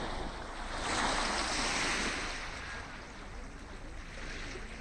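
Sea waves on a beach: a wave swells and breaks about a second in, then washes back and fades.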